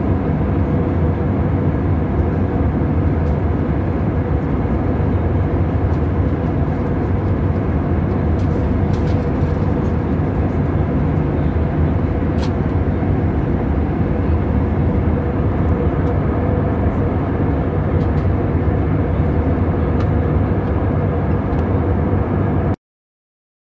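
Steady cabin noise of an Airbus A320neo in cruise, heard from a window seat: engine and airflow rush with a faint steady hum. It cuts off abruptly near the end.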